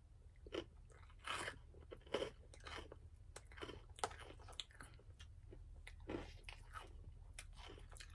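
A person chewing food close to the microphone, in irregular short bursts. A metal fork clicks now and then against a clear plastic food container. A steady low hum runs underneath.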